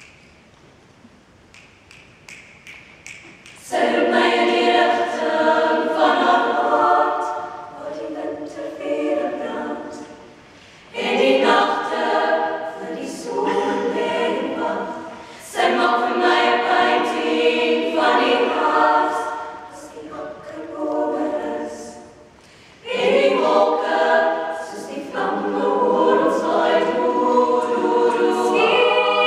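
Women's choir singing in close harmony without instruments, in phrases that begin about four seconds in and break off and restart three more times, with sharp clicks among the voices.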